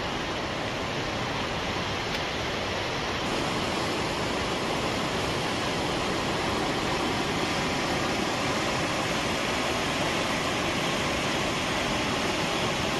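Steady rushing of fast-moving floodwater.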